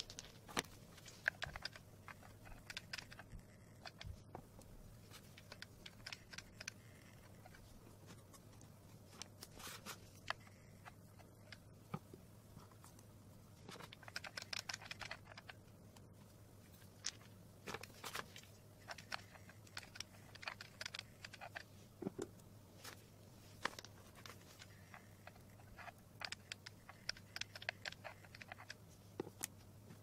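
Small stones being set down and pressed onto a cardboard base, giving faint scattered clicks and clacks of stone on stone and stone on card, some in quick runs, over a low steady hum.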